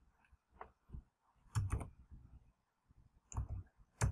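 Computer keyboard being typed on slowly: a handful of separate keystroke clicks, with a pause of over a second in the middle, as a short word is entered.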